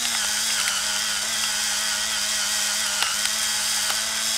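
ONECAM Gravity battery-powered electric pepper grinder running steadily upside down, its small motor giving a constant whine as it grinds black peppercorns at a medium setting, with a few faint ticks.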